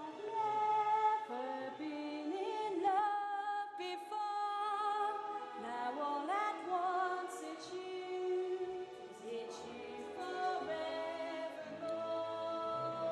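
Vocal group singing in harmony: several voices holding long notes with vibrato and gliding between pitches, in a slow song.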